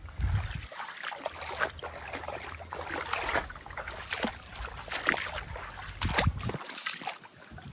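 Irregular rustling and crackling of wet leafy vegetation being brushed and walked through, a few sharp crackles a second, over a low rumble that drops out briefly about a second in and again near the end.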